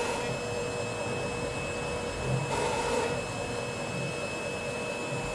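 DIY CNC router's 2.2 kW water-cooled spindle running with a steady whine while the bit cuts the sheet, the cutting hiss swelling briefly about halfway through.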